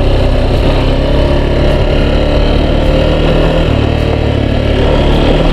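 Yamaha XTZ 250 Lander's single-cylinder four-stroke engine running at a fairly steady pace while riding, with a steady rush of wind and road noise.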